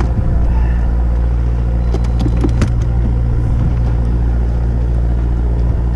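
Fishing boat's engine running steadily, a low drone. A few light clicks come about two seconds in.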